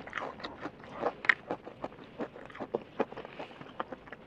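Close-miked chewing of crispy fried chicken: irregular crunches of the breaded coating and wet mouth clicks, several a second, with one sharper crunch about a second in.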